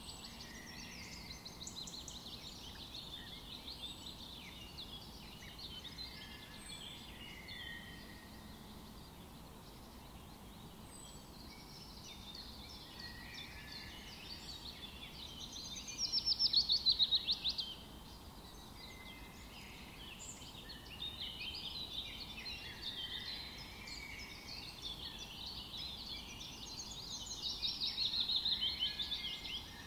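Birds chirping and singing over a faint steady hiss, with a louder rapid trill about halfway through and another near the end.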